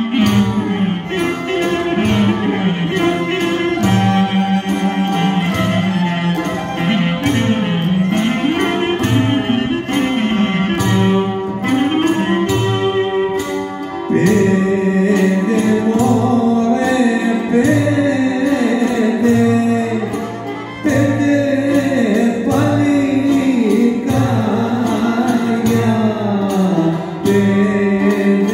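Live Epirote folk music with singing, played for a line dance: a winding melody over a steady accompaniment, growing louder about halfway through.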